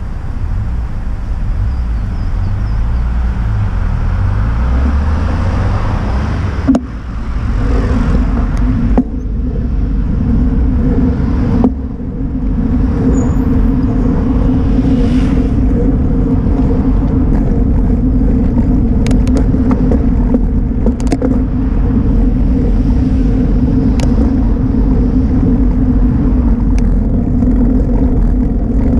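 Steady rumble of a bicycle rolling on asphalt, heard through a bike-mounted camera, with a car's engine close ahead in the first few seconds. Two sharp knocks come around a quarter and a third of the way in, and a steady low hum runs on from about a third of the way in.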